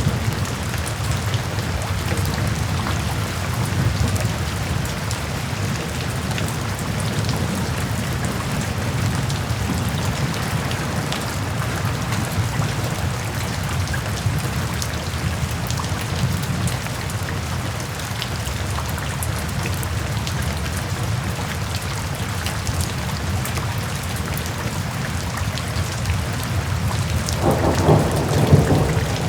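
Steady rain falling on a surface, with a dense patter of individual drops. A louder rumble, typical of thunder, swells in near the end.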